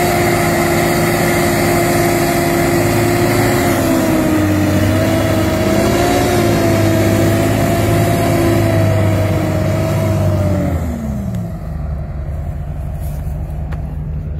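Heavy tractor diesel engines working hard as a Kirovets K-701 drags a tracked John Deere out of mud. The engine note wavers around halfway, then glides down and quietens shortly before the end as the engines ease off, leaving a lower drone.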